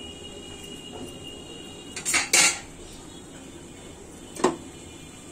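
Metal cookware and utensils clanking against each other: a quick cluster of clanks about two seconds in and a single clank near the end.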